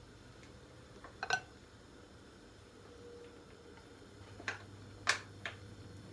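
A few sharp clicks and taps, a close pair about a second in and three more in the last two seconds, as a plastic slotted spatula knocks against a non-stick frying pan and is worked under a cooking pancake.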